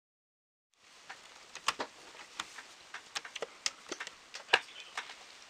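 Irregular sharp clicks and taps from hands handling and positioning fabric at a sewing machine, starting about a second in after a brief dead gap.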